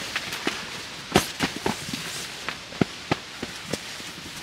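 Wood cracking and snapping: a run of irregular sharp cracks, about ten in four seconds, the loudest about a second in.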